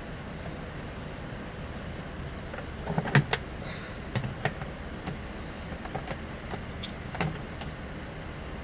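Scattered sharp clicks and knocks of washing-machine parts being handled and taken apart, loudest about three seconds in, over a steady low hum.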